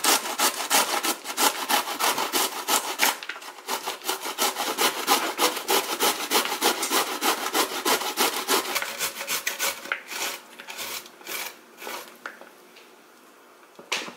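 Cauliflower being grated on the coarse side of a handheld cheese grater: fast, even rasping strokes, about four a second. After about nine seconds the strokes thin out and stop shortly before the end.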